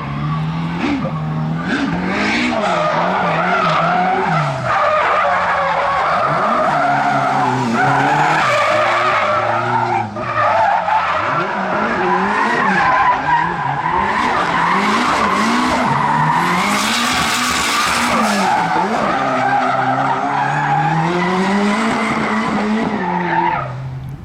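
Drift car at full attack: the engine is revved hard, its pitch climbing and dropping again and again as the driver works the throttle, while the tyres squeal and screech almost without a break. The noise fades away just before the end.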